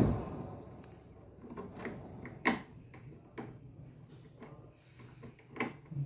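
Refrigerator leveling foot being fitted by hand: a sharp knock right at the start, then scattered light plastic clicks and knocks as the new foot is handled and threaded into the cabinet corner, over a faint low hum.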